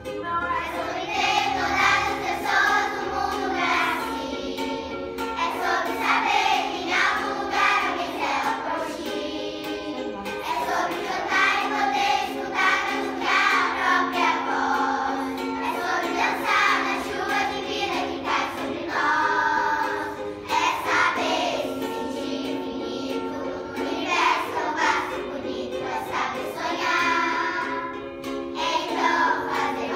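A children's choir singing a song together over a recorded backing track played from a small portable speaker.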